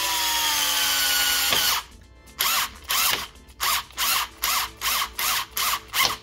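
Bosch cordless drill-driver turning a screw: one continuous run of just under two seconds, then about nine short bursts on the trigger in quick succession, about two a second.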